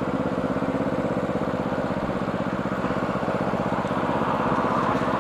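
Motorcycle engine running at a steady pitch, with an even, fast throb from its firing pulses.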